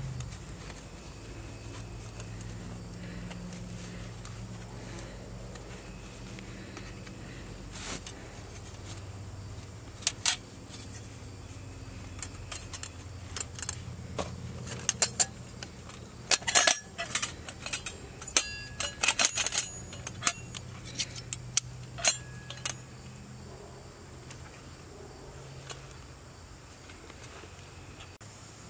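Hinged stainless steel panels of a folding twig stove clinking and clicking as it is unfolded and snapped into shape, with a dense run of sharp metallic clicks through the middle, over a steady low hum.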